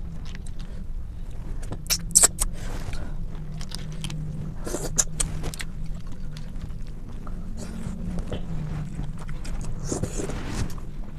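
Close-miked eating sounds of clams in sauce: chewing with sharp clicks and smacks, the loudest about two seconds in and more around the middle and near the end, over a steady low hum.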